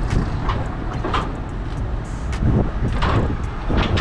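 Steady low rumble of an idling diesel truck engine, with scattered light knocks and clanks.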